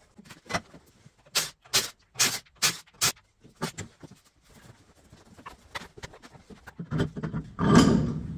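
Workshop knocking: about six sharp, loud knocks in quick succession, then lighter clicks and clatter, and a louder scraping rush near the end.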